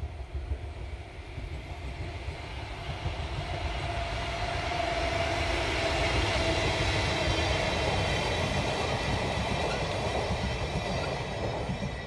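ED75 electric locomotive hauling blue passenger coaches past on the line. The running noise of the wheels on the rails swells to its loudest about halfway through as the coaches go by, then fades as the train draws away.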